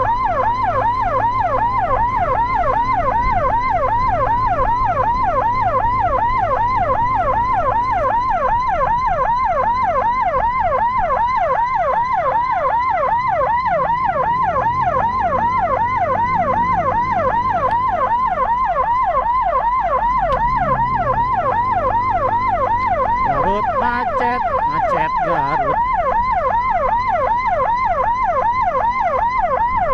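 Electronic siren on a fast yelp, its pitch sweeping up and down about three times a second without a break, over the low rumble of engines in traffic.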